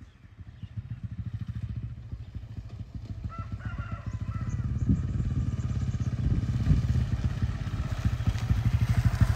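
Small Yamaha underbone motorcycle engine running as the bike rides along a dirt track, growing steadily louder as it approaches.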